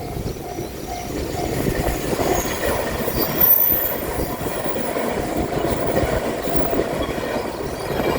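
Train passing over a Japanese railway level crossing, its wheels rumbling and clattering on the rails, while the crossing's warning bell keeps dinging about twice a second.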